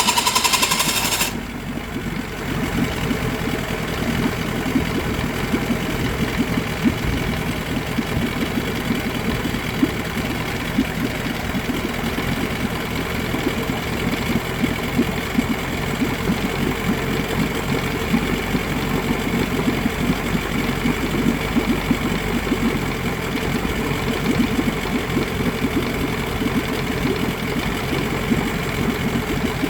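Mariner outboard motor catching and running loudly for about the first second, then settling into a steady idle that runs on unchanged.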